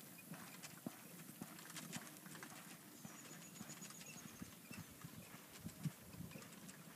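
Faint hoofbeats of a ridden horse moving over arena sand: an uneven run of soft, dull thuds, one a little stronger near the end.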